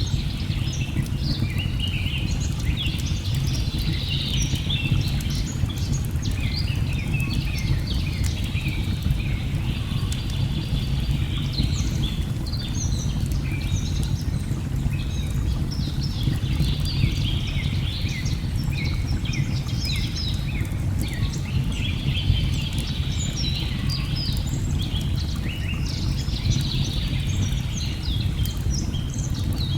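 Layered nature ambience: many forest birds chirping and trilling over a steady low rush of falling water, with a few faint crackles from a log fire.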